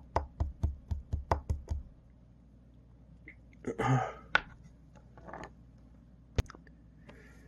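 A quick run of about ten sharp taps or knocks in the first two seconds, then a short breathy voiced sound about four seconds in and a single sharp knock near six and a half seconds.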